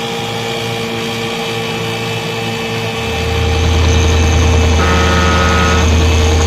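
Boat engine running steadily, a deep hum swelling in about three seconds in, with a brief higher tone around five seconds.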